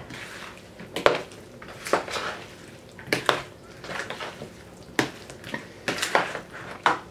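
A metal spoon stirring boiled potato chunks with herbs and oil in a bowl, knocking and scraping against the bowl's side every second or so.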